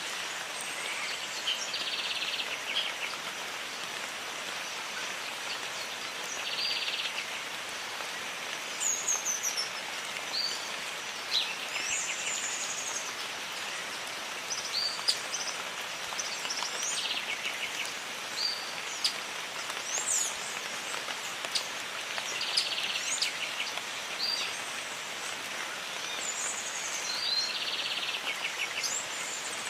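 Steady jungle rain with birds calling over it: short whistled, sliding notes and a buzzy trill that comes back every few seconds.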